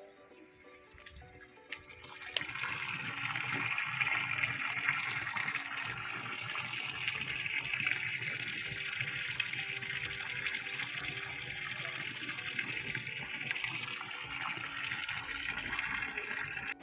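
Steady rush of running water, starting about two seconds in, with faint music underneath.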